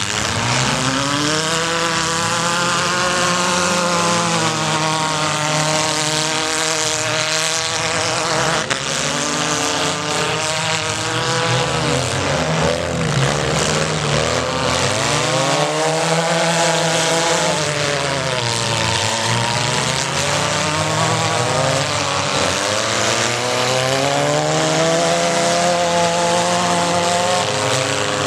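Compact demolition-derby cars' engines revving, the pitch rising and falling in long swells every few seconds over the noise of several engines running at once.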